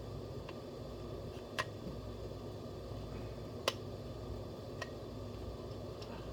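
A few short, light clicks and taps of plastic toy vehicle parts being handled and pushed together, the sharpest a little past halfway, over a steady low hum.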